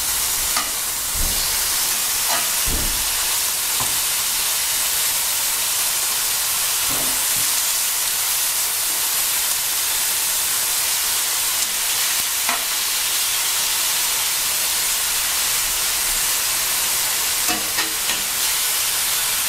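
Marinated pork pieces sizzling steadily in a hot oiled cast iron skillet as they are laid in and moved with metal tongs, with a few short clinks of the tongs against the pan. The sear is the sign the pan is hot enough.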